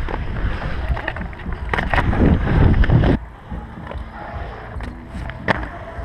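Skate wheels rolling fast over a concrete bowl with wind buffeting the microphone, a loud rumble with a few sharp clacks, dropping off abruptly about three seconds in. A single sharp knock follows about two seconds later.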